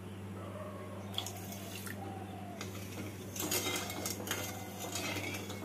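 A spatula stirring sugar and water in a steel wok, scraping and clattering against the metal, starting about three and a half seconds in; the sugar is being dissolved for syrup. Before that, only a couple of faint clicks.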